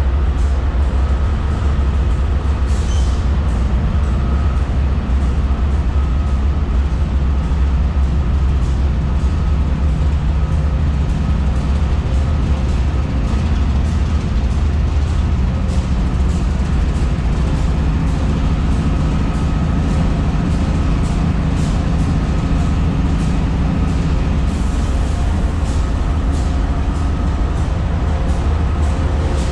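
Diesel-electric locomotive engine idling in an enclosed shop: a loud, steady low rumble with a faint steady hum above it.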